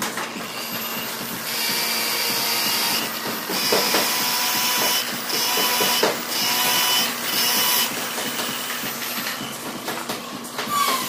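Angle grinder fitted with a sanding pad, running and sanding the face of a wood slab; its steady motor whine dips and swells several times as the pad is eased on and off the wood, and it winds down near the end.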